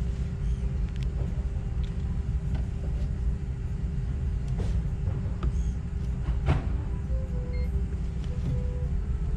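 A steady low rumble with a faint constant hum and a few light clicks.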